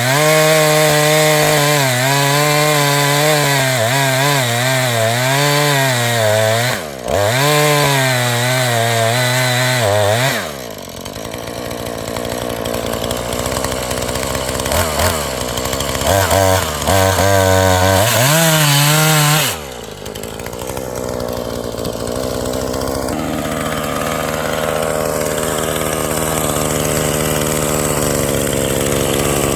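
Two-stroke chainsaw cutting wood at full throttle, its pitch wavering as the chain loads up in the cut. About ten seconds in it drops off the cut, revs up again for a few seconds, then settles to a steady lower speed for the last third.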